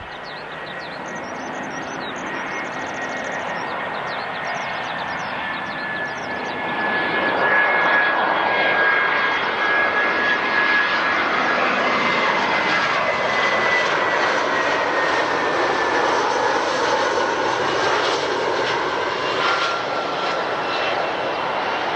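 Jet airliner's engines, a steady roar that swells about a third of the way in and stays loud, with a high whine gliding slowly down in pitch as the plane passes.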